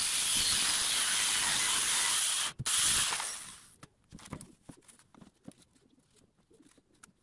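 Handheld electric circular saw cutting through a plywood board: a steady hiss of blade in wood for about two and a half seconds, a short second burst, then the saw stops and only light knocks of the board being handled remain.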